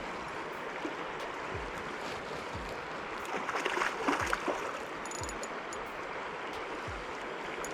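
River water running steadily over the stream bed, with a brief louder crackling burst about three and a half seconds in.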